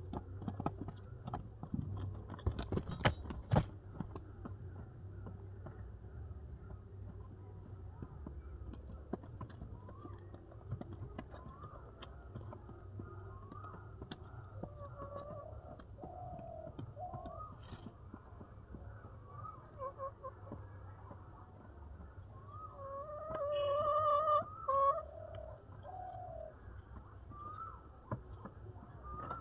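Domestic pigeons calling in a loft: a run of short cooing calls that starts about a third of the way in and is loudest a few seconds before the end. A handful of sharp knocks comes about three seconds in.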